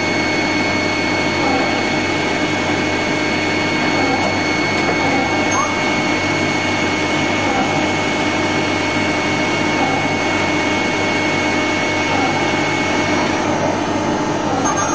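INDEX G200 CNC turning centre running a machining cycle: a steady mechanical whir with a high, steady whine over it that stops about thirteen seconds in.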